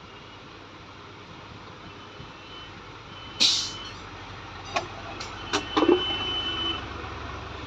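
Street and vehicle noise: a steady low hiss, a loud short burst of hiss about three and a half seconds in, a few sharp knocks, then a held tone lasting about a second.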